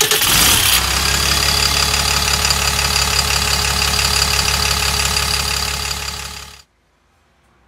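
An engine starting, with a quick run of clicks as it catches, then idling steadily with a knocking beat, cut off abruptly near the end.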